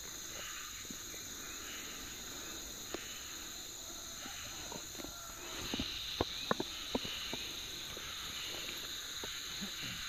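Steady high-pitched drone of a chorus of insects such as cicadas or crickets, growing a little louder about halfway through. A few short sharp clicks stand out between about six and seven seconds in.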